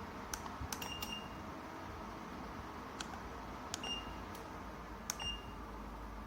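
Electric fireplace-style ceramic heater's controls being pressed: sharp clicks, several of them answered by a short high confirmation beep, spaced a second or more apart.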